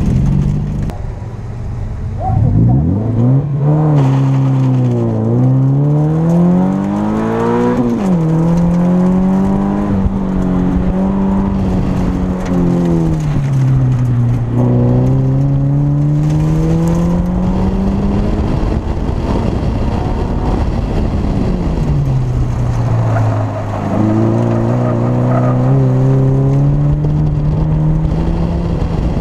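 Car engine heard from inside the cabin, driven hard through an autocross cone course. Its note climbs under acceleration and falls when the driver lifts or shifts, with sharp drops in pitch about eight and fourteen seconds in.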